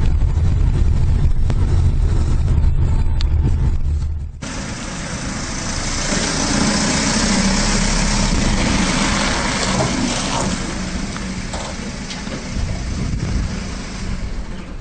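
Truck engine running with a loud, steady low rumble that stops abruptly about four seconds in. It gives way to a steady hiss with a faint engine hum under it.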